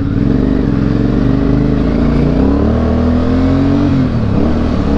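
A 750 cc two-cylinder motorcycle engine accelerating, its pitch rising steadily for about four seconds. Near the end the revs fall away as a shift from first to second slips into neutral.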